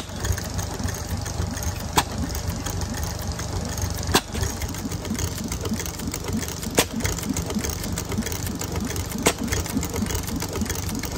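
7 HP Fuller & Johnson throttle-governed antique gas engine running with a steady, even beat. Being throttle governed rather than hit-and-miss, it fires every cycle. A sharp click recurs about every two and a half seconds.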